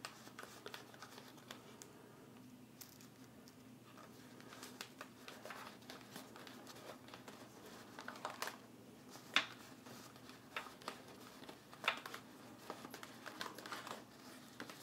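Cellophane crinkling faintly as a long sheet is slowly rolled around a wooden dowel by hand, with a few sharper crackles in the second half.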